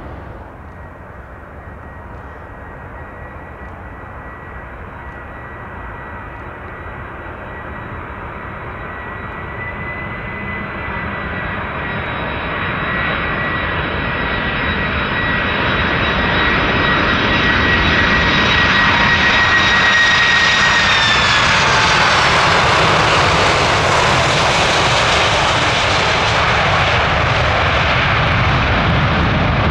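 Jet airliner engines growing steadily louder as the aircraft approaches. A high fan whine drops in pitch about two-thirds of the way through as it passes, leaving a loud, steady rush of engine noise.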